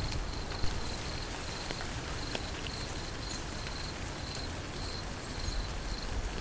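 Steady rain falling, with an insect chirping in short high-pitched pulses about twice a second. There is a single sharp tick about half a second in.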